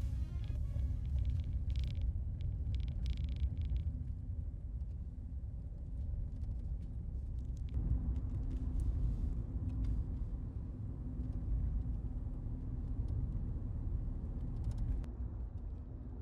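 Suzuki Hustler kei car driving, a steady low rumble of engine and road noise, with a few brief crackles in the first few seconds.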